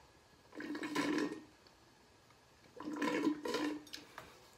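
Slurping through a straw at the bottom of a nearly empty glass jug, drink and air sucked up together with a gurgle, twice.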